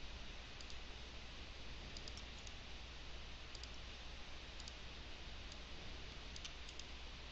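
Faint computer mouse clicks, several in quick pairs, over a steady low hum and hiss: selecting text, copying and pasting.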